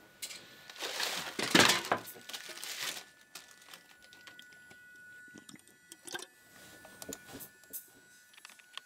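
A burst of crinkling and rustling, loudest about a second and a half in and lasting about two seconds, followed by a few faint scattered clicks and taps.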